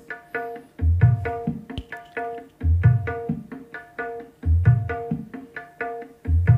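Recorded music with drums and quick melodic notes, played from a phone over Bluetooth through the Ashley FX402i mixer into loudspeaker cabinets. A heavy bass hit comes back about every two seconds.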